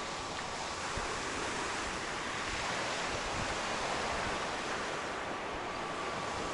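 Black Sea surf washing on the beach: a steady rushing noise that swells a little and eases, mixed with wind on the microphone.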